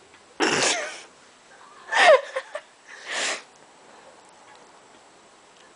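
Three short, breathy vocal bursts from a person, the second the loudest and falling in pitch.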